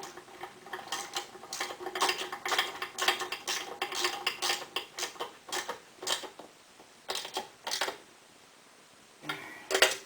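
Metal hand tools working a bolt into an aluminum skid plate: quick metallic clicking and clinking for about six seconds, then a few separate clinks, a short pause and one more sharp clink near the end.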